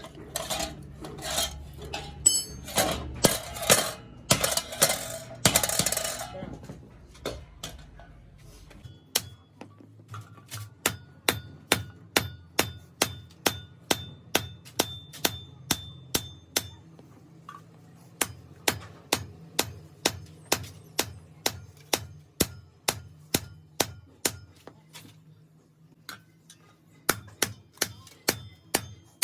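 Hammer blows on a metal truck clutch plate, sharp and evenly spaced at about two a second, with a short pause near the end. The first few seconds are busier clattering and scraping of metal.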